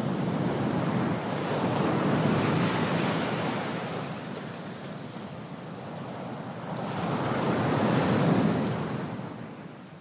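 Ocean surf: waves wash in twice, swelling about two seconds in and again about eight seconds in, then the sound fades out near the end.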